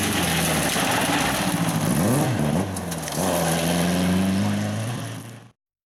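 Two-wheel-drive rally car engine at full throttle on a gravel stage. It dips briefly in revs and loudness about two and a half seconds in, then pulls again and fades as the car drives away. The sound cuts off abruptly near the end.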